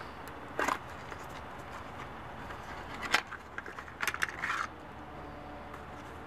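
A narrow cardboard box being handled and opened: a brief scrape about half a second in, a sharp tap about three seconds in, then a quick cluster of rustling scrapes as a digital grill thermometer slides out of the box onto a table.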